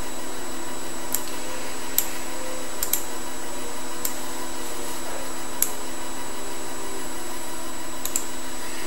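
A steady hum of several fixed tones, as from a computer or recording setup. About every second or two there is a sharp mouse click.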